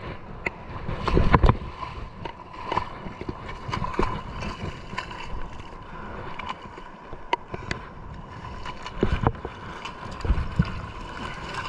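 Shallow seawater sloshing and splashing close to the microphone as a person wades through it, with many sharp clicks and knocks scattered throughout.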